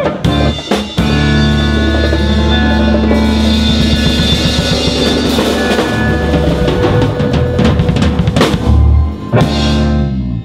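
Jazz quartet playing live: drum kit, congas, electric bass and hollow-body electric guitar, with busy drum fills. Loud cymbal crashes come about eight and a half and nine and a half seconds in as the band hits the closing accents, and the music cuts off at the end.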